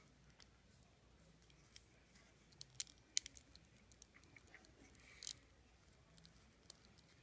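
Near silence: room tone with a few faint clicks and taps about two and a half to three seconds in, and a soft brush of noise a couple of seconds later.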